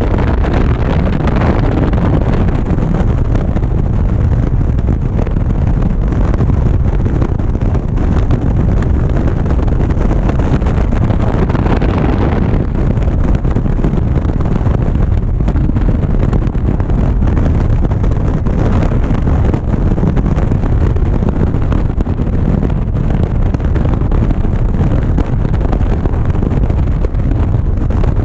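Wind rushing hard over a GoPro's microphone on a motorcycle riding at highway speed, with the motorcycle's engine and road noise under it.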